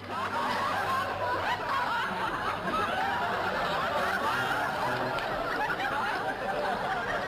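An audience laughing: many voices at once, starting suddenly and keeping up steadily throughout.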